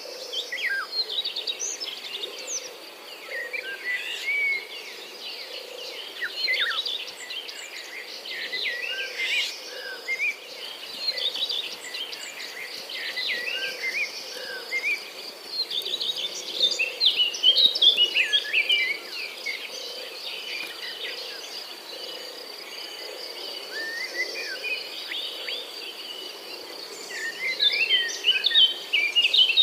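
Many songbirds chirping and calling over one another in a busy dawn chorus, over a steady high insect trill.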